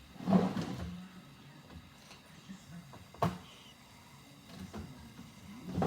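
Kitchen handling noises as the salt is put away: a knock about half a second in, then a single sharp click about three seconds in.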